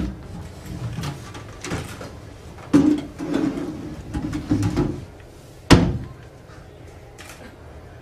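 Wooden bentwood chairs being moved on a stage floor: several scrapes and knocks, with one sharp knock about six seconds in, the loudest sound.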